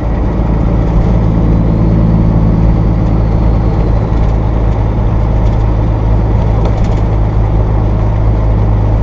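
Peterbilt 379 semi truck's diesel engine running steadily at highway speed: a loud, even, low drone.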